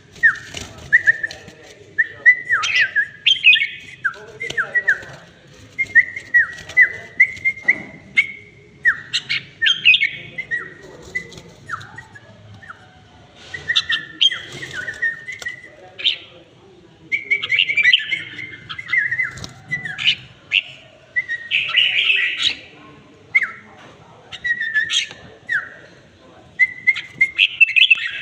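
Red-whiskered bulbul singing: a long run of short, bright whistled phrases, many sliding down in pitch, one after another with brief gaps.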